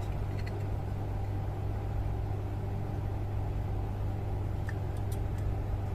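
Steady low machine hum with a few faint small clicks of parts being handled about four and a half to five seconds in.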